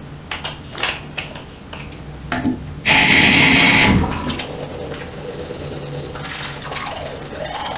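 Bathroom sink tap gushing water for about a second, then shut off abruptly. Before it come small clicks of a toothpaste tube and toothbrush being handled.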